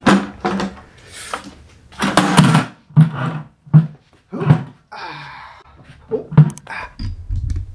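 Close handling noise as the camera is set up and a person settles onto a low seat: a string of knocks, thuds and rustles, with a short scrape about five seconds in and a low rumble starting near the end.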